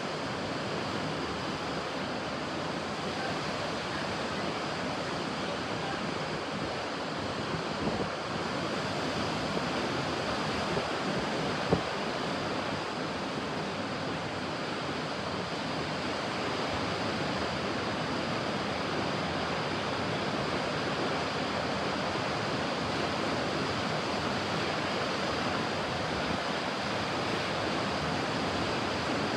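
Ocean surf washing steadily on a beach, a continuous hiss of breaking water without distinct separate wave crashes. A single brief sharp click stands out about twelve seconds in.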